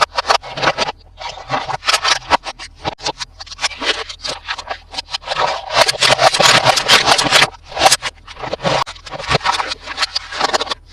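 Dense, irregular crinkling and scraping as toy packaging and plastic parts are handled during unboxing.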